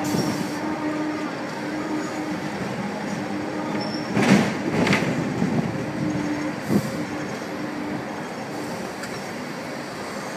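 Hong Kong double-decker tram running along its rails, heard on board: a steady rumble of wheels on track with an on-and-off motor hum, two loud clatters about half a second apart a little before the middle, and a single sharp knock a couple of seconds later.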